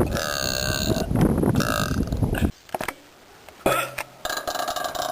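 A person belching loudly: two long, pitched burps back to back. The sound cuts off abruptly about two and a half seconds in, and a quieter stretch with faint clicks follows.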